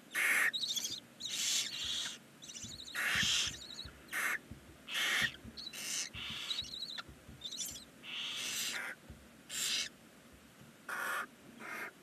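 Barn owl chicks giving their harsh, hissing snore calls, the begging call of barn owl nestlings: about a dozen short rasping calls, roughly one a second at irregular gaps.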